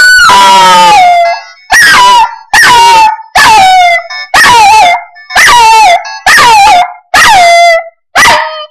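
Chihuahua puppy howling along to a phone ringtone: nine loud howls, each falling in pitch, about one a second, the first the longest.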